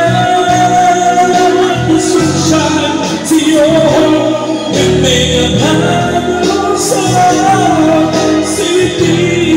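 Karaoke: a man singing through a microphone over a loud backing track, holding long, sustained notes.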